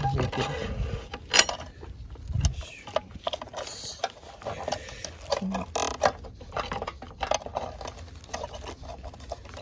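Irregular clicks, taps and scrapes of metal parts being handled while feeling for a mounting hole to fix a tractor battery in place.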